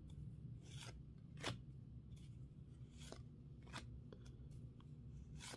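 Faint flicks and slides of football trading cards handled one by one, each card pulled from the front of the stack to the back, making a light click roughly once a second.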